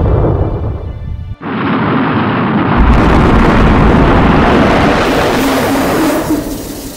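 Rocket engine roar mixed with dramatic soundtrack music. A deep rumble cuts out abruptly about a second and a half in, and a fuller roar returns. The roar fades near the end as the engines shut down.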